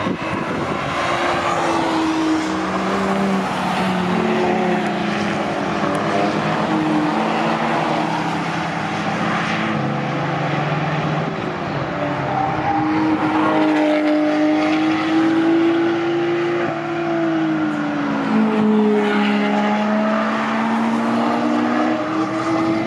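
Several cars' engines at once, driven hard through a corner at the Nordschleife. Their notes overlap and rise and fall as they ease off, shift and accelerate out.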